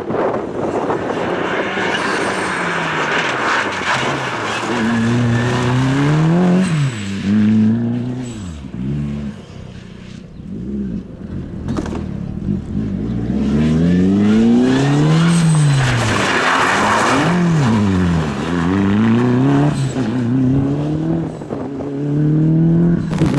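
Rally car engines driven hard, the revs climbing and dropping again and again through gear changes and lifts off the throttle, with tyre noise on the road surface.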